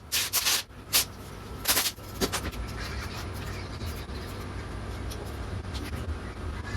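Aerosol can of high-temperature copper grease spraying in three short hissing bursts in the first two seconds, then stopping, leaving a steady low hum.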